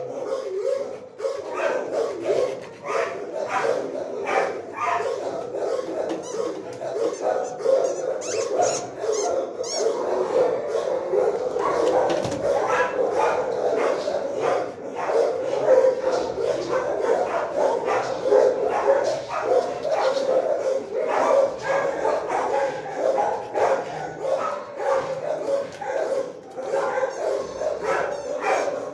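Many shelter dogs in kennel runs barking and yipping at once, the barks overlapping without a break.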